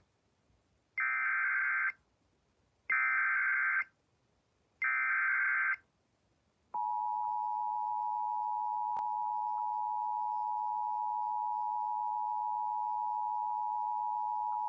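Emergency Alert System header: three bursts of SAME digital data tones, each about a second long, then the steady two-tone EAS attention signal (853 and 960 Hz) held for about eight seconds. Together they announce a severe thunderstorm warning.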